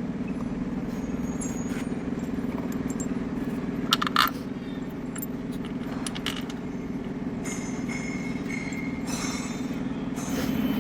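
Metal clinks of hand tools and bolts being handled, the loudest a sharp double clink about four seconds in, with smaller clinks later, over a steady low mechanical hum.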